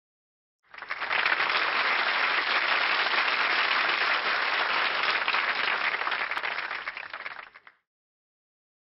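Applause: a dense, even clatter of many hands clapping that starts just under a second in and fades out near the end.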